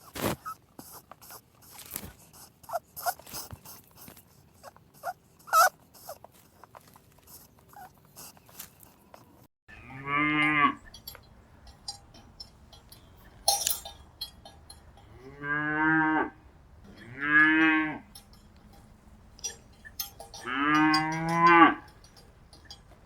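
Scattered small clicks and taps for the first ten seconds, then a cow mooing four times, each moo a long call of about a second or more.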